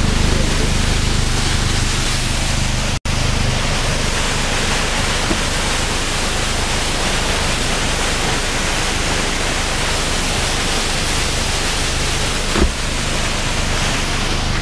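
Steady rush of a small waterfall tumbling over rocks, an even, loud noise. The sound cuts out for an instant about three seconds in, and there is one short knock near the end.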